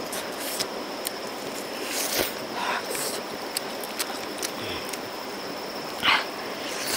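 Close-up mouth sounds of eating grilled fish off a bamboo skewer: a few short sucking and smacking noises, the loudest near the end, over a steady background hiss.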